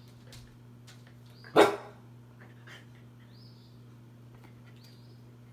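Three-month-old Australian shepherd puppy giving one sharp bark at its own reflection about a second and a half in, with a few faint ticks around it, over a steady low hum.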